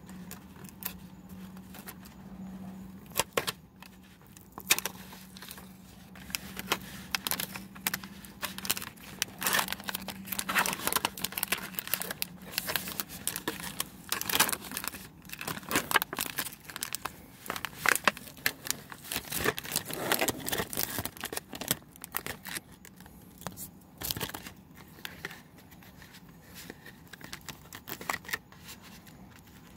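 Plastic packaging of an Armour Lunchmakers snack kit crinkling and tearing as it is opened: the film lid peeled off the plastic tray and a wrapped portion unwrapped. The crackling is densest in the middle and gives way to lighter handling of the tray near the end.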